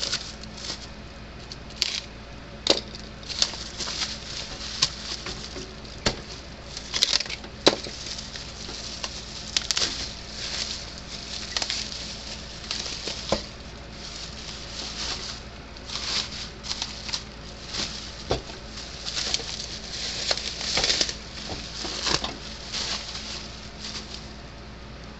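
A utility knife cutting material at a workbench: irregular rustling and crackling with many sharp clicks, on and off throughout.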